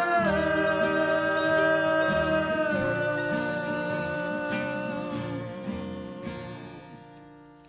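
Gospel singers holding the song's final sung note over acoustic guitar. The chord steps down early on, then the sound fades steadily away.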